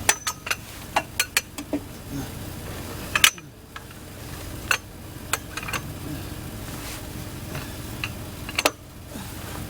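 Irregular metallic clanks and knocks from tools and metal parts being handled during work under a vehicle, about a dozen of them, the loudest about three seconds in, over a steady low hum.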